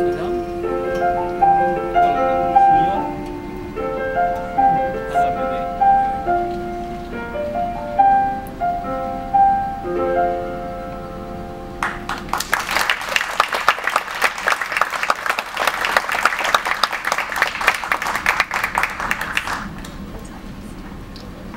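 Piano playing a melodic passage of single notes and chords, then an audience breaks into applause about twelve seconds in, which dies away near the end.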